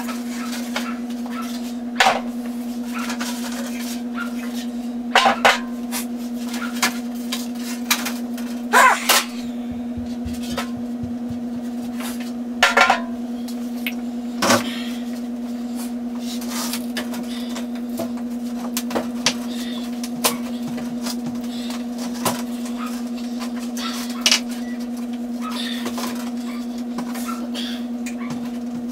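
Sheet-metal clanks and knocks, about eight of them scattered at irregular intervals, as a furnace heat exchanger is handled and its outer panel taken off, over a steady low hum.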